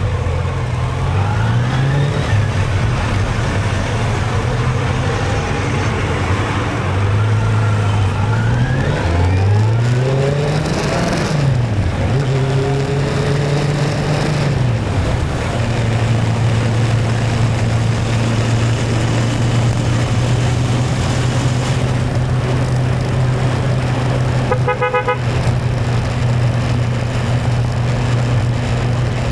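Motorcycle engine under way: its pitch climbs in several sweeps as it accelerates through the gears, then it settles into a steady cruise. A short horn beep sounds once late on.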